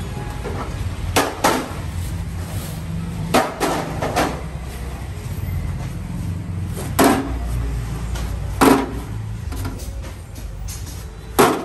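About eight sharp knocks at irregular intervals, some in quick pairs, the sound of hard items being handled and set down, over a steady low rumble.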